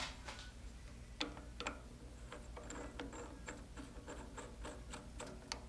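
Light metallic ticks, about four a second, as the new knurled handle is turned by hand into the locking nut of a quick-change tool post on a mini metal lathe.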